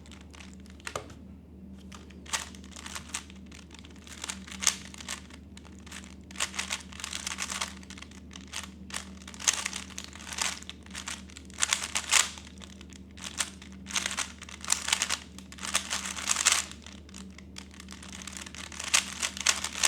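3x3 Rubik's cube being turned at speed during a solve: quick runs of clicking and clacking as the layers turn, with short pauses between the runs.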